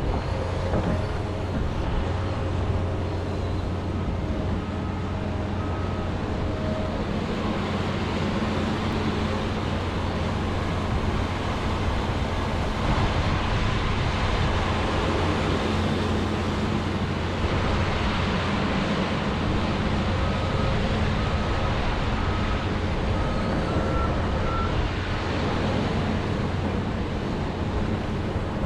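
John Deere 210G excavator's diesel engine running steadily under working load while digging frozen peat moss, its drone swelling slightly now and then.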